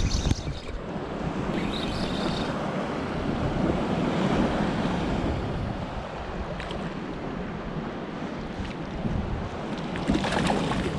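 Steady wind buffeting the microphone over lapping sea water. About ten seconds in, a short splash as a small fish is tossed back into the water.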